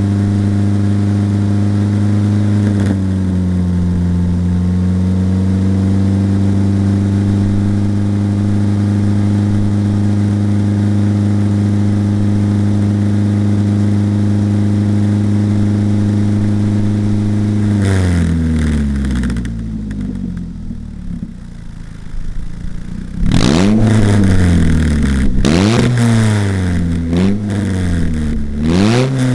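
Polaris Slingshot engine running through a DNT Racing aftermarket exhaust, held at a steady raised engine speed for about eighteen seconds. It then drops back to idle, and near the end the throttle is blipped about five times in quick succession, each rev rising and falling sharply.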